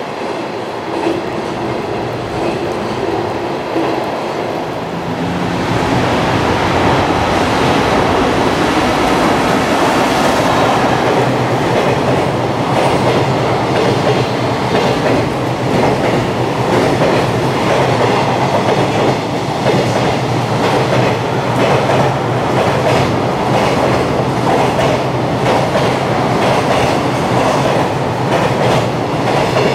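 Long freight train of JR container wagons passing at speed, its wheels clattering over the rail joints in a rhythmic clickety-clack. There is a steady low drone underneath. The sound builds up about five seconds in and stays loud.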